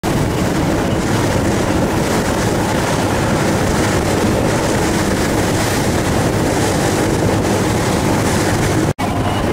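Sportfishing boat underway: its engine running steadily under the rush of water and wind buffeting the microphone. The sound cuts out for an instant near the end, then carries on the same.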